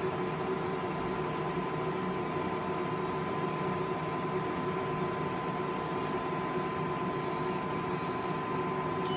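xTool F1 Ultra laser engraver running a scoring pass on a slate coaster: a steady machine hiss with a constant high hum. The hiss drops away right at the end as the job finishes.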